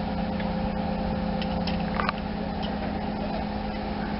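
Large mobile crane's diesel engine running steadily with a low hum, with one sharp metallic click about halfway through.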